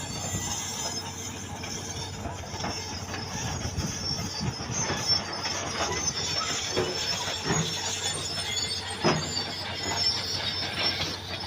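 Excavator working: a steady engine and hydraulic hum with intermittent metallic squeals and clanks.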